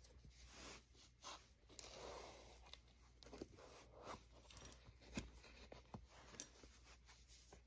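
Faint rustling, scraping and small clicks of a sneaker being worked onto a prosthetic foot with a shoehorn, its fabric and sole rubbing and shifting under the hand.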